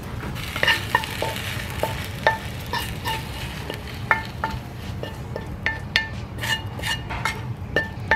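A utensil scraping and tapping inside a metal skillet as fried rice is pushed out of it into a bowl: irregular knocks, many with a short metallic ring from the pan.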